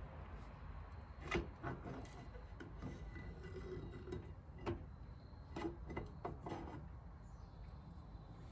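Steel ATV rear axle shaft being slid by hand through its housing's new bearings and seals: scraping with scattered metal knocks and clinks, the sharpest about a second and a half in and a cluster around five to six and a half seconds.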